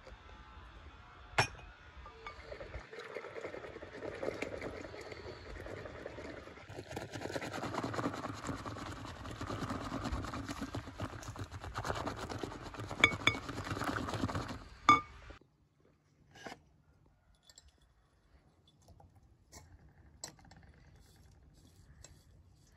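Wire whisk beating pancake batter in a glass mixing bowl: a continuous wet stirring with the whisk now and then clinking against the glass. There is a sharp clink about a second in and a couple more near the end of the whisking, which stops about fifteen seconds in, leaving only faint small clicks.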